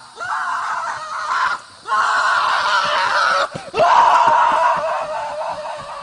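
A person screaming over and over: three long, loud screams with short breaths between, the last fading away near the end.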